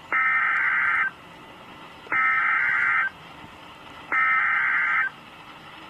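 NOAA Weather Radio Emergency Alert System SAME header: three raspy bursts of two-tone digital data, each about a second long and a second apart, over steady radio hiss. The bursts carry the coded alert for a tornado warning.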